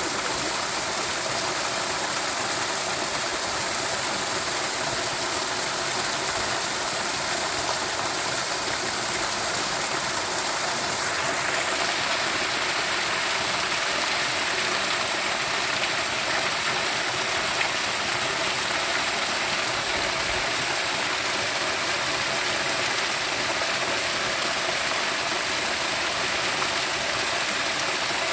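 Steady, continuous rushing of flowing water, a hiss that changes slightly in tone about eleven seconds in.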